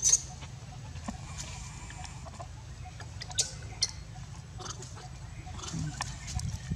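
Macaques giving a few short, high-pitched squeaks. The loudest comes right at the start, two more come about three and a half seconds in, and a few fainter ones come near the end. A steady low rumble runs underneath.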